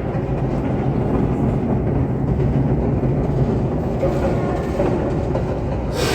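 The observatory's rotating platform turning on its rails, a steady low rumble of rolling wheels and drive.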